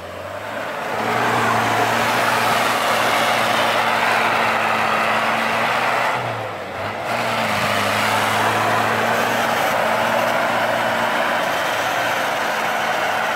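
Land Rover Discovery's 300Tdi four-cylinder turbodiesel running hard at steady revs as the 4x4 ploughs through deep snow. The sound dips briefly about six seconds in.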